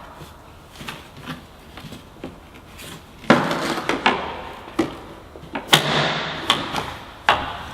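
Plastic cowl cover of a PT Cruiser being worked free and lifted out past the wiper arm: scraping and rubbing with a few knocks. The loudest come about three and a half and six seconds in.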